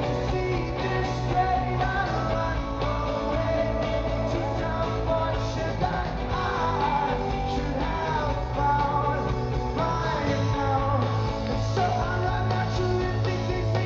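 Rock band playing live in concert, a singer's voice carrying the melody over the band.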